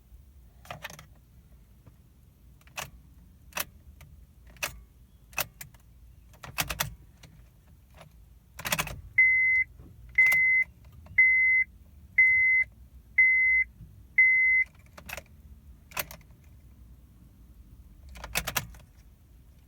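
Car keys jangling with a series of sharp clicks, then a high warning chime beeping six times, about once a second. No starter cranking or engine running is heard, fitting a 2008 car that will not crank even with a good battery and a new starter.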